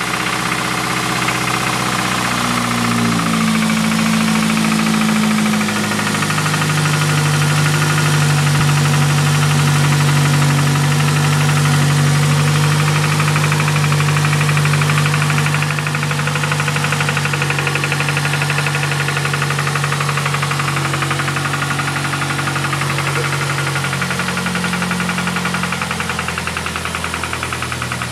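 2007 Ford Focus ZX4 ST's 2.3-litre four-cylinder engine running with a rapid, steady knock, which the owner suspects may be rod knock. The engine speed steps up a few seconds in, holds steady, and settles back down near the end.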